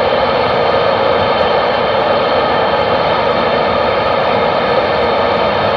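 Steady static hiss from a CB radio receiver's speaker with no voice coming through.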